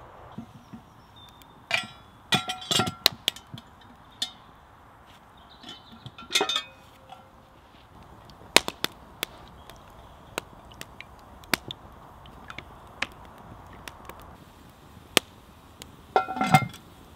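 Wood fire crackling, with scattered sharp pops. Cast-iron clanks sound in several short clusters, from a Petromax cast-iron Dutch oven and its lid being handled. The loudest comes near the end, a ringing clank as the lid is set on the pot.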